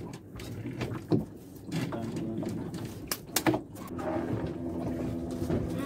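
Gill net being hauled in over the side of a fibreglass fishing boat, with a few sharp knocks against the hull, the loudest about a second in and three and a half seconds in. A low steady hum comes in about four seconds in.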